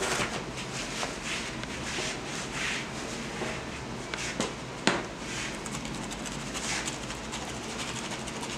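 Soft rubbing and rustling of gloved hands and baker's linen as proofed dough loaves are handled and dusted with flour from a metal shaker, with a few light knocks.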